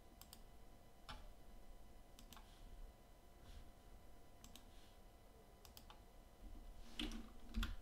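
Faint computer mouse clicks, single and in quick pairs, every second or so, with a soft low bump near the end.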